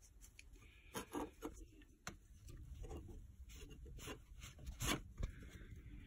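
Cotton rag being rubbed and handled, with a few light clicks and taps, the sharpest about five seconds in.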